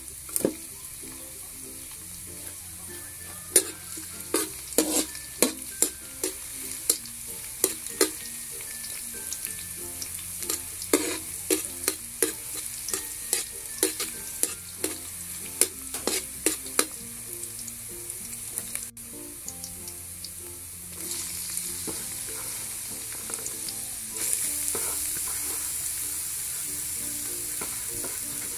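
Minced garlic and onion sizzling in hot oil in a wok, with a spatula clacking and scraping against the wok in quick irregular strokes through the first half. About two-thirds in, and again a few seconds later, the sizzle grows louder as julienned carrots and green beans go into the pan.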